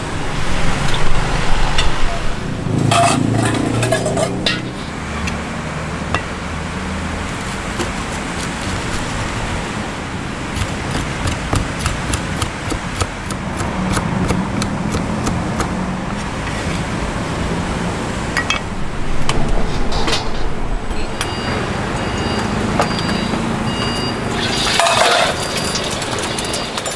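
Street-food stall ambience: a steady background of traffic, voices and a low hum, with a run of quick taps or knocks about halfway through.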